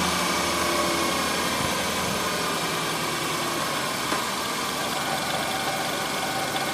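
1997 Ford Taurus engine idling steadily in reverse gear, on a busted motor mount.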